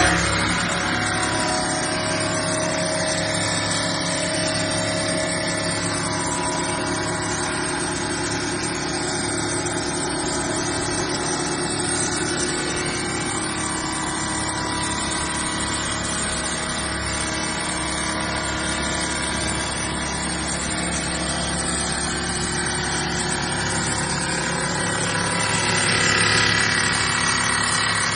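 CNC bridge saw cutting a stone slab with its water-cooled diamond blade: the spindle motor and blade give a steady, even hum and grind. The sound grows louder for a moment near the end.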